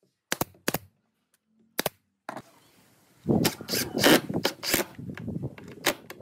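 A pneumatic brad nailer fires three sharp shots into pine in the first two seconds. From about three seconds in, a cordless impact driver runs in uneven bursts of hammering as it drives screws into the wood.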